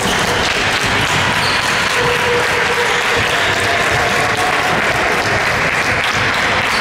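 Hands clapping, many at once, echoing in a sports hall, with a basketball bouncing on the court floor.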